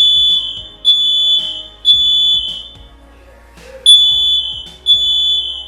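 Smoke alarm sounding under test: loud, high-pitched beeps in the three-beep evacuation pattern. Three beeps, a pause of about a second, then two more.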